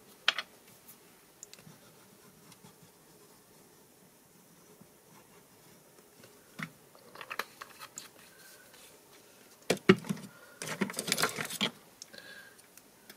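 Small handling noises of card pieces and a plastic squeeze bottle of liquid glue on a craft mat: scattered light clicks and taps, a sharp click about ten seconds in, then about a second of scratchy rustling.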